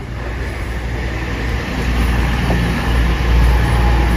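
Class 222 Meridian diesel multiple unit's underfloor diesel engines running with a low rumble, growing steadily louder.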